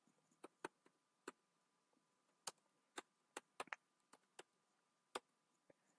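Computer keyboard being typed on: about a dozen separate key clicks at an uneven pace, some in quick pairs, with quiet gaps between.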